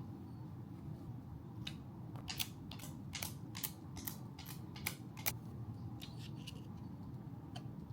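A quick run of about a dozen sharp clicks and snaps from hands handling the plastic sunshade kit and its packaging. The clicks bunch together in the middle and thin out near the end, over a steady low hum.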